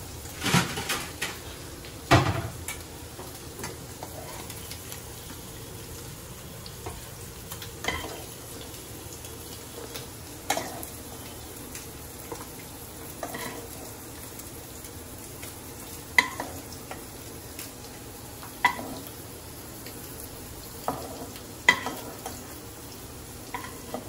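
Paneer pieces sizzling in shallow oil in a pan, with a metal spatula clinking and scraping against the pan every two to three seconds.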